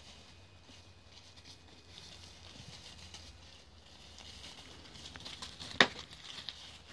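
Ouessant sheep shuffling and pawing through dry leaf litter, a faint crackling and rustling, with one sharp knock near the end.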